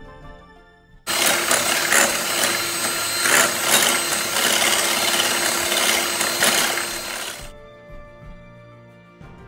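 iBELL electric hand mixer running, its beaters whipping a cream mixture in a glass bowl: a loud, steady motor whir with a low hum. It starts suddenly about a second in and fades out about two seconds before the end, with soft background music underneath.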